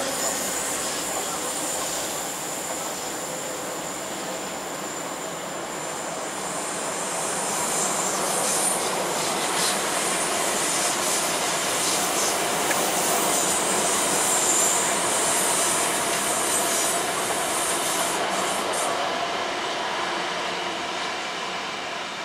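Passenger train running along the tracks, its wheels squealing thinly and high with clicks over the rail joints. The sound swells in the middle and eases off near the end.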